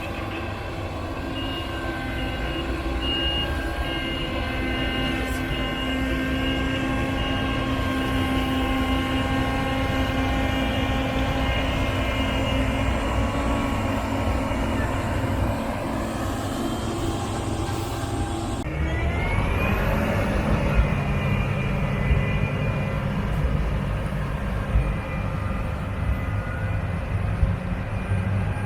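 Claas Lexion 8800 combine harvester running steadily with a low machinery drone and several steady whining tones. About two-thirds through, the sound changes abruptly and a tone rises briefly in pitch.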